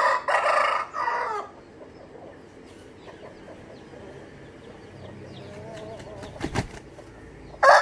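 Rooster crowing: a loud crow broken into three parts at the start, and the start of another crow near the end. A brief wing flap comes shortly before the second crow.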